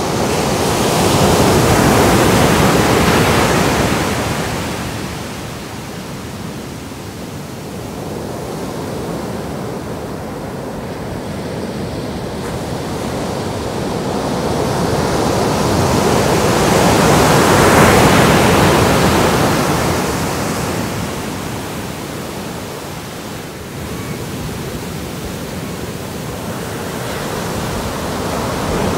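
Ocean surf breaking and washing up the beach: a steady rushing that swells as a wave crashes about two seconds in, and again just past the middle.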